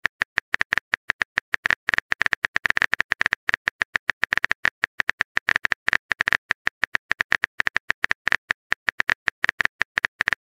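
Keyboard typing sound effect of a texting-story app: quick, sharp key clicks, about six a second, as a message is typed out letter by letter.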